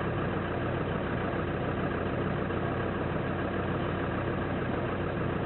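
A vehicle's engine idling steadily, a constant low hum.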